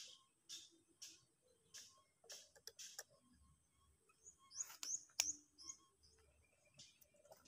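Faint, short, high chirps of a sooty-headed bulbul (kutilang) acting as a tethered lure bird. The chirps repeat about twice a second at first, and a louder cluster of sharp, falling notes comes about five seconds in, together with one sharp click.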